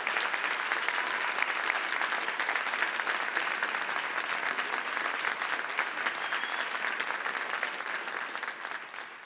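Audience applauding: dense, steady clapping from a seated crowd that tapers off near the end.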